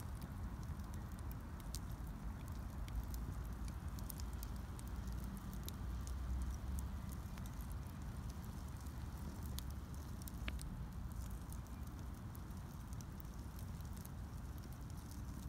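A fire crackling: scattered sharp pops and snaps over a steady low rumble.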